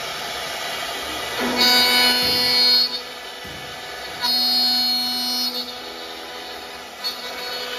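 Cosen four-axis woodworking CNC machine's spindle running with a steady high whine and hum. It gets sharply louder twice, about a second and a half in and again about four seconds in, for a second or so each time, as the cutter bites into the wooden chair back leg.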